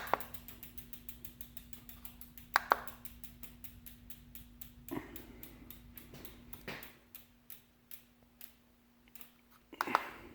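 Rapid, even ticking like a bicycle freewheel coasting, slowing and thinning out in the second half, with a few louder sharp clicks and knocks spread through it.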